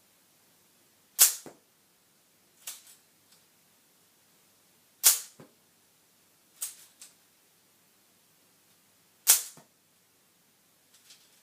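Home-built K'nex toy gun firing orange K'nex connectors: three sharp plastic snaps about four seconds apart, each followed by a small click. Quieter plastic clicks come between the shots.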